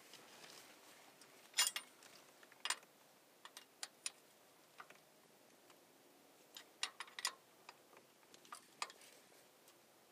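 Faint, irregularly spaced metal clicks and taps of a wrench working the rocker-arm adjuster lock nuts on a Cummins 5.9 12-valve diesel's valve train during a valve lash adjustment.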